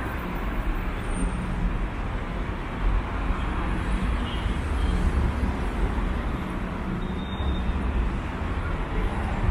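Steady city road traffic: cars driving along a busy avenue, a continuous mix of engine and tyre noise.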